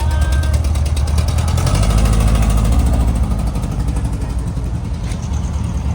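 Car engine running close by with an even, rapid exhaust pulse. It revs up a little about two seconds in and then settles back.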